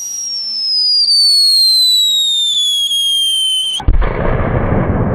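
Whistling firecracker (a 'quadroboom' with whistle effect) giving one long whistle that falls steadily in pitch for nearly four seconds. The whistle cuts off in a sudden loud bang followed by a rush of noise.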